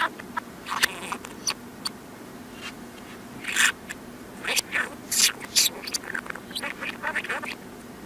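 A budgerigar's chattering warble played backwards: an irregular run of short squawks and chirps, several a second, with louder clusters about halfway through.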